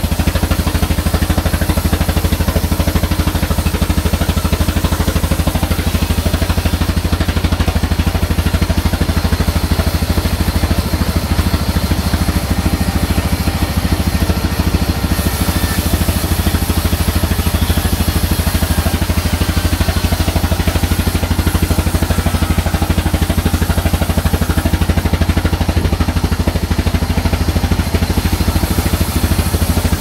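Diesel engine driving a band sawmill runs steadily with a fast, even chug and a strong low rumble, while the saw cuts a log being pushed through it.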